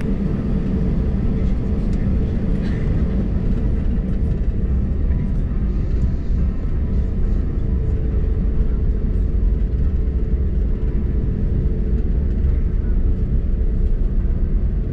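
Cabin noise of an Airbus A320neo taxiing, heard from a seat beside the wing: its CFM LEAP-1A engines at taxi power give a steady low rumble, with a steady hum that fades out a few seconds in.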